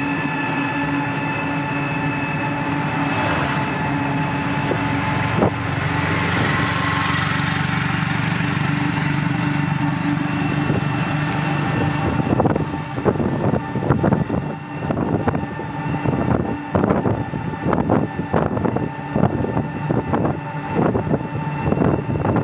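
Vehicle travelling along a road: a steady run of engine hum and road noise with a few fixed tones. From about halfway through it turns choppy and uneven, with irregular buffeting.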